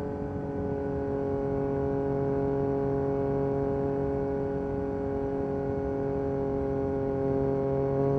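Yamaha MT-09 SP's 890 cc inline three-cylinder engine through an Akrapovic carbon racing exhaust, running at a steady engine speed while riding. It eases slightly just after the start, then holds even, and picks up a little near the end.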